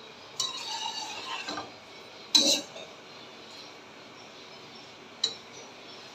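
Kitchen utensils and dishes clinking and clattering: a run of clatter near the start, one loud ringing clank about two seconds in, and a single short clink about five seconds in.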